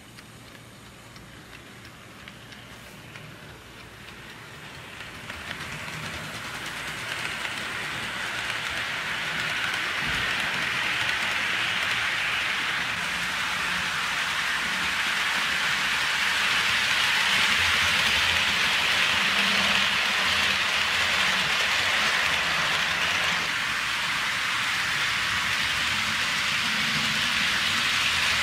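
Hornby OO-gauge LB&SCR Terrier model locomotive running on the track, pulling a train of freight cars: a steady rolling hiss and rattle of wheels and motor. It grows louder over the first ten seconds or so, then holds steady.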